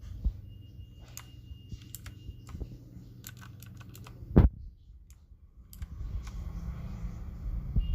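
Keys of a Cosmic Byte RGB mechanical keyboard clicking in irregular keystrokes over a steady low hum, with one loud low thump about halfway through.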